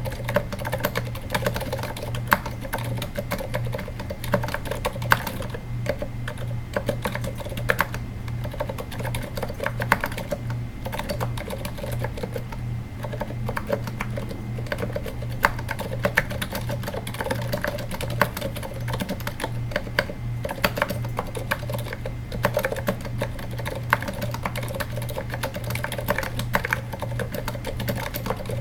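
Continuous typing on a Katana-60 keyboard with 78g Zilent silent tactile switches. The keystrokes are quiet, rubber-dampened clicks on both the press and the release, heard over a steady low hum.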